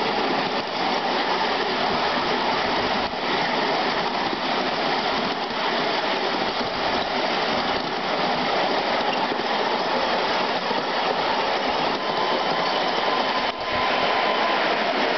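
Ride-on miniature railway train running along the track: a steady rolling noise from its wheels on the rails. The noise gets a little louder near the end as the train enters a brick tunnel.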